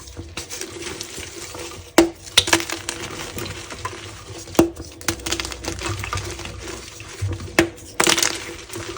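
Close-miked ASMR handling sounds: irregular sharp clicks and crinkles over a steady hiss, the loudest click about two seconds in.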